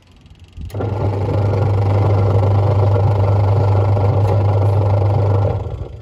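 Semi-automatic twin-tub washing machine's wash motor and gearbox running after the wash timer is switched on: a loud, deep steady hum with a rougher noise over it, starting about a second in and stopping shortly before the end.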